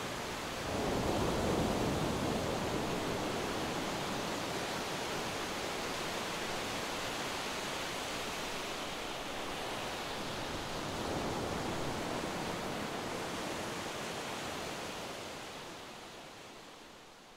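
Steady outdoor rushing noise, swelling about a second in and again around eleven seconds, then fading out near the end.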